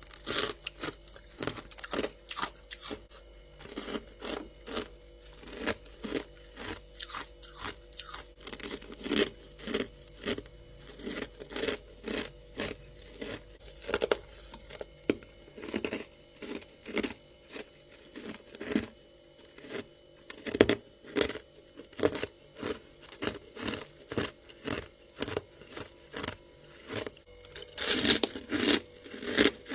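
Dry, crispy freezer frost being bitten and chewed close to the mouth: a steady run of sharp crunches, about one or two a second. A faint low hum sits under the first half and stops about halfway.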